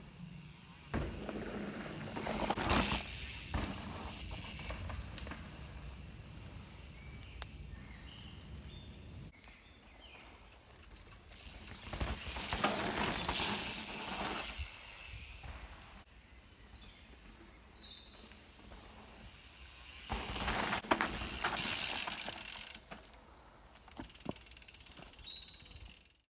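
Mountain bike tyres rolling on a dirt trail with the rear freehub ticking as the rider passes, in three swells about 2, 13 and 21 seconds in. Faint bird chirps between the passes.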